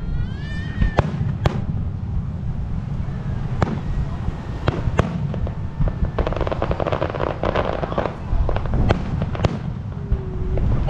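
Fireworks display: a series of sharp, irregular bangs from bursting shells, with a stretch of dense crackling about six seconds in.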